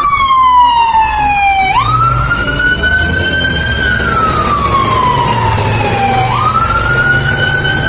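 Fire engine siren wailing over a low rumble. Its pitch sinks slowly and then sweeps quickly back up, twice.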